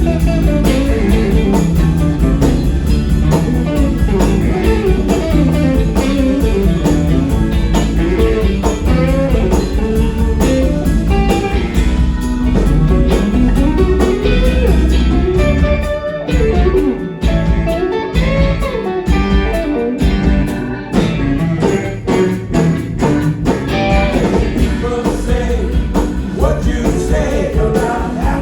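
Live blues-rock band playing, with an electric guitar and drums, and a melodic line that may be singing. About halfway through, the bass drops out in short, stop-start stabs before the full groove returns.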